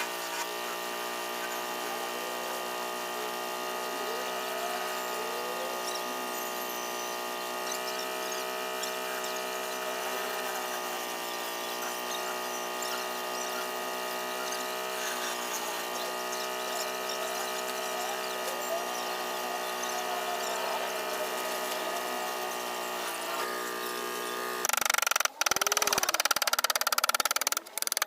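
Small electric grinder motor running steadily with a constant hum. About 25 seconds in, the sound turns abruptly louder and harsher, with a few brief dropouts.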